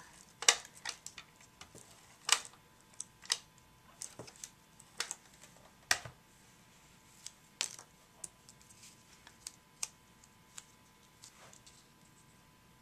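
Irregular sharp clicks and taps, roughly a second apart and thinning out near the end, from an ATG adhesive tape gun being run over the back of paper banner pieces and the pieces being handled and pressed onto a card on a cutting mat.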